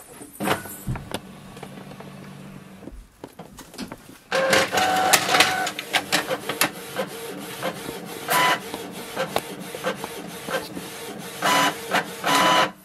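Canon PIXMA MG2540S inkjet printer printing a page. A low hum as it starts up, then from about four seconds in the paper feed and print-head mechanism run with whirring and rapid ticks, with louder bursts near the end as the printed sheet comes out.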